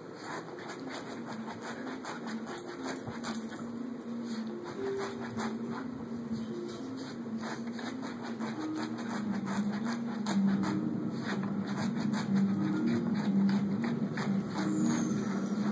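Miniature schnauzer digging at a fabric couch cushion, its claws scratching the upholstery in a rapid, uneven patter. A tune of stepping notes plays in the background and grows louder about halfway through.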